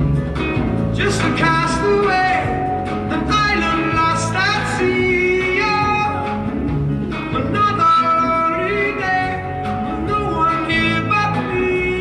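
Live acoustic band music: an upright bass and a djembe-style hand drum with guitar, under a melody of long held notes that bend slightly in pitch.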